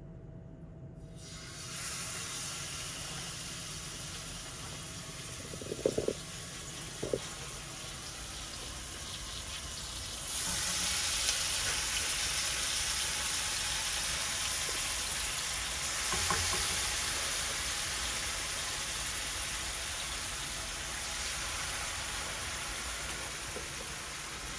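Raw chicken sizzling in hot olive oil in a frying pan: a steady hiss that starts about a second in and grows louder about ten seconds in. Two sharp clacks come near six and seven seconds.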